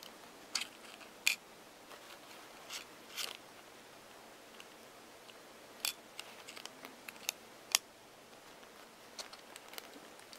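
Irregular small sharp clicks and ticks as fingers push a SIM card into the metal SIM holder in the open back of a Jolla phone, fingertips and card tapping on the plastic casing.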